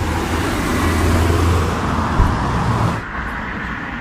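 Street traffic noise: a motor vehicle's engine and tyre noise swelling close by, then dropping off abruptly about three seconds in.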